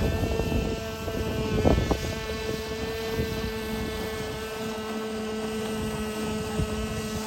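Nitro Kyosho RC boat's small glow-fuel engine running with a steady high-pitched whine at an even pitch, with a brief noisy rush under two seconds in.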